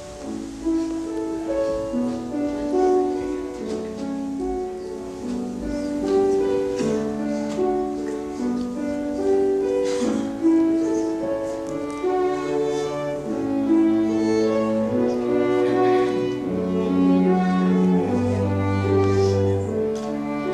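Slow instrumental music on bowed strings, violin and cello, with long held notes and a low bass line entering near the end.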